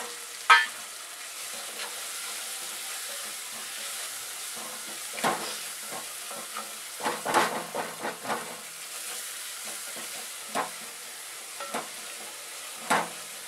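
Onion-tomato masala sizzling in hot vanaspati fat in a metal pot while a wooden spatula stirs it, scraping and knocking against the pot now and then. A sharp knock comes about half a second in, and a run of scrapes and knocks comes a little past the middle.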